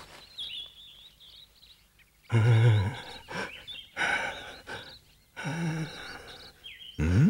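Birds chirping, then from about two seconds in several short, louder pitched sounds.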